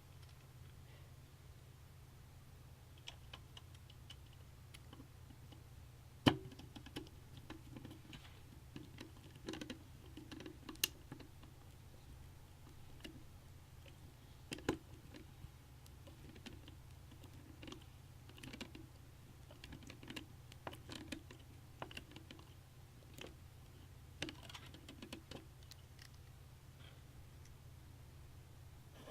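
Scattered light clicks and taps of small parts and tools being handled during PC assembly over a low steady hum, with a sharper knock about six seconds in and another around fifteen seconds.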